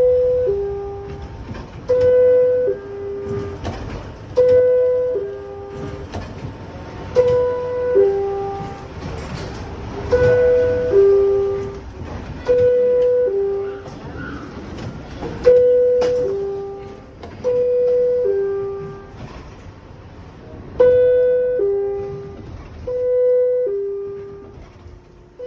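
R62A subway car door chime, a descending two-note "bing-bong" repeated about ten times, roughly every two to three seconds, over the low rumble of the train.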